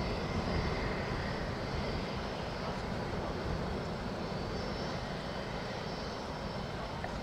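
Steady aircraft engine noise on an airport apron: an even rush that does not change.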